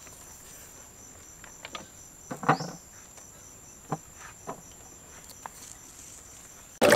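Insects chirping steadily in a high, evenly pulsing trill, with a few light taps and knocks from knife work on spring onions. Right at the end a sudden loud splash of water cuts in.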